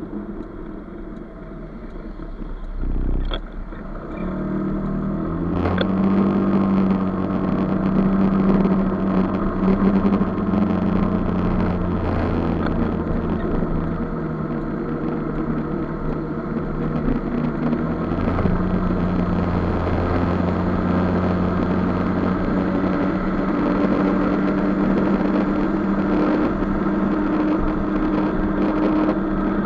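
Maxi-scooter engine with wind and road noise, picking up speed about five seconds in and then running steadily at highway speed. A short thump comes about three seconds in.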